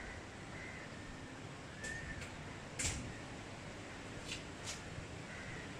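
Steady faint rush of wind, with a few short high chirps and several sharp clicks, the loudest about halfway through.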